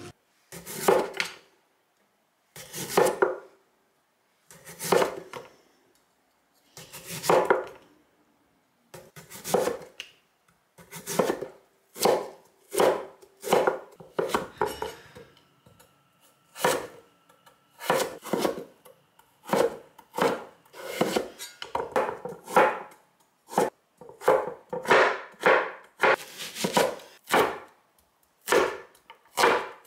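Chef's knife slicing raw potato and then onion on a wooden cutting board, each stroke ending in a knock on the board. The strokes come about two seconds apart at first, then quicken to one or two a second.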